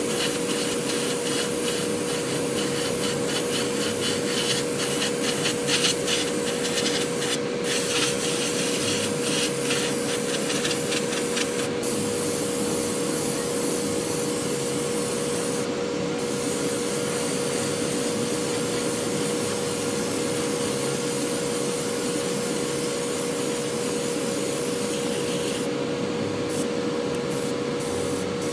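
Airbrush hissing as it sprays paint, the hiss cutting out briefly a few times as the trigger is let off, over the steady hum of a motor.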